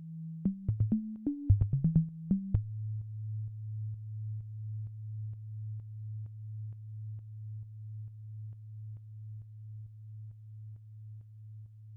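Electronic music from a drum machine played live: a deep, pure bass tone, broken about half a second in by a quick stuttering run of clicks and jumping pitches, then settling on a lower tone that pulses about twice a second and slowly fades.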